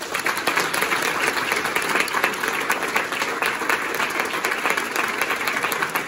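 Theatre audience applauding, dense steady clapping.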